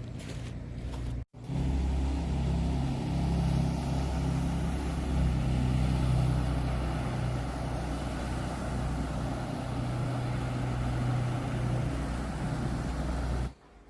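Rice cargo boat's engine running steadily, a deep hum with a wash of noise over it; it drops out for a moment just over a second in and cuts off near the end.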